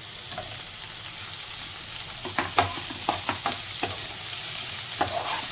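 Chopped squid tentacles sizzling in hot oil with onion and garlic in a frying pan, just added. A spatula stirs and scrapes the pan in a quick run of strokes about halfway through.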